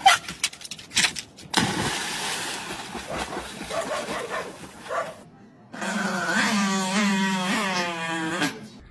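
Water splashing for a few seconds as a dog jumps off a dock and thrashes in the sea, then a chihuahua snarling in a buzzing growl for a couple of seconds.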